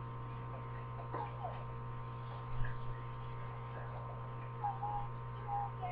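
Steady low electrical mains hum, with a soft bump about two and a half seconds in and faint short pitched sounds, like distant voices, near the end.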